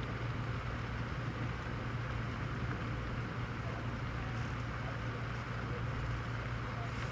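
Steady rainfall during a thunderstorm, with no thunder clap, over a constant low hum.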